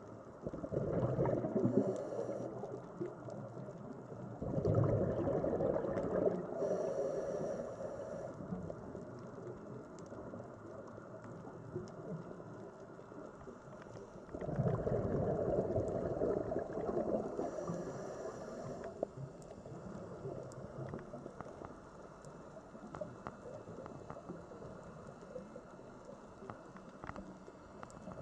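Sea water surging in swells that rise and fade away every several seconds, with scattered small clicks.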